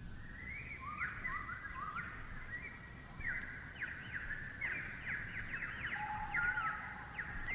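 Recorded birdsong sound effect opening an orchestral film-music track: many bird calls chirping and trilling over one another, with quick rising and falling notes. A steadier held note joins about six seconds in.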